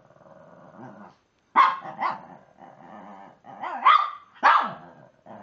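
A Shih Tzu "talking": a low, wavering grumble, then several short, sharp barks with whiny, moaning sounds between them. These are play-soliciting noises made at another dog to get it to play.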